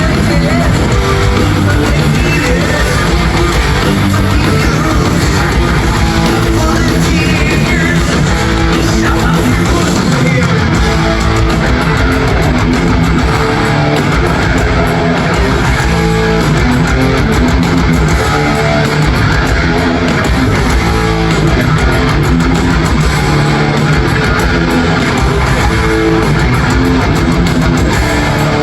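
Heavy metal band playing loudly and without a break: distorted electric guitar riffing over bass guitar.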